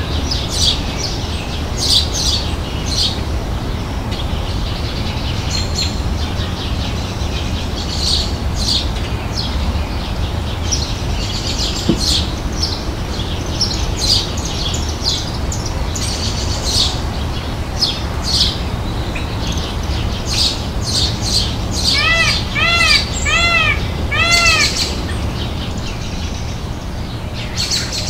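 Small birds chirping in quick, short high notes throughout, over a steady low rumble. Near the end, a rapid run of about six short calls that each rise and fall in pitch, typical of a peacock (Indian peafowl).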